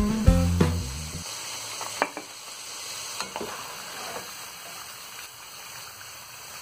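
Potato sticks frying in hot oil with a steady sizzle, and a few sharp clicks of a metal skimmer against the pan as the fries are lifted out to drain. Background music stops about a second in.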